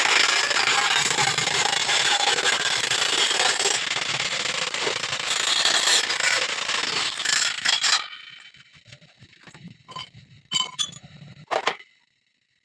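Electric arc welding: a dense, steady crackle and sizzle of the arc that cuts off suddenly about eight seconds in. After it, a few sharp metallic taps and clinks.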